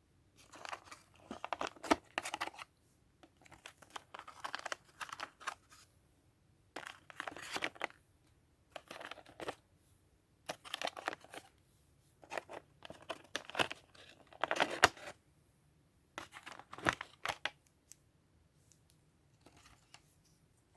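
Toy packaging being opened by hand: plastic and cardboard crinkling and tearing in repeated bursts of a second or two, with short pauses between.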